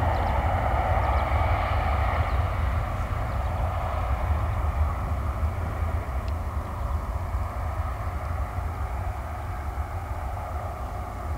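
The four CFM56 jet engines of a Kuwait Airways Airbus A340-300 running as the airliner moves away down the runway, with a steady rushing sound and a deep rumble underneath, fading gradually.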